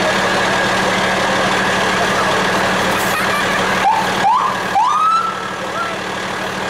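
Fire truck's engine running steadily. About four seconds in, its siren gives two short rising whoops, then a longer rising wail that levels off and fades.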